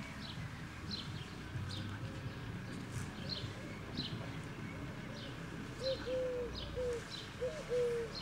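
Garden birds calling: a small bird gives short high chirps over and over, and from about six seconds in a pigeon coos in a run of low, repeated notes.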